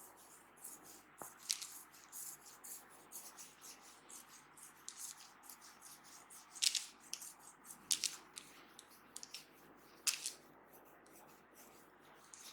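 Hands massaging a head and shoulders: soft rustling strokes of palms and fingers over hair and skin, a few louder swishes, and one small click about a second in.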